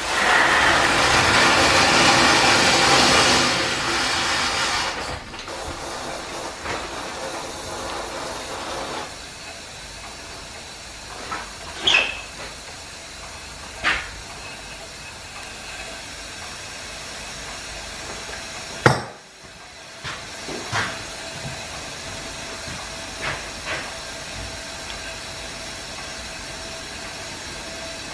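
Steam and condensed water hissing out of the open drain cocks on a steam engine's steam chest as the cold engine is warmed and cleared of condensate. The hiss is loud for about the first five seconds and dies down by about nine seconds. Afterwards a few scattered knocks follow, one sharper than the rest.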